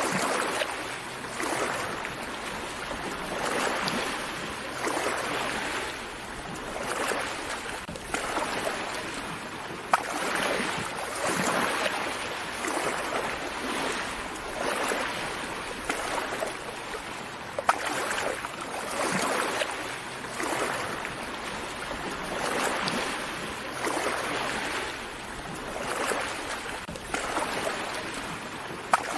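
Small sea waves breaking gently on a beach, the wash of surf rising and falling about every two seconds. A few sharp clicks stand out, one about ten seconds in and another past the middle.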